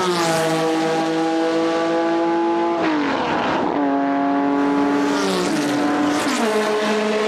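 Racing car engine running at high revs, its pitch stepping down abruptly about three times, like gear changes.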